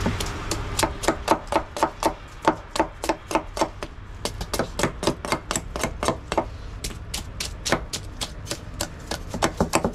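A large knife scraping scales off a snakehead (murrel) fish on a wooden log, in quick rasping strokes about three to four a second, with a brief pause partway through.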